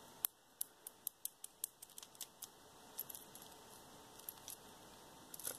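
Beaded jewelry clicking and clinking lightly as it is handled: a quick run of small clicks over the first couple of seconds, then a few scattered ones.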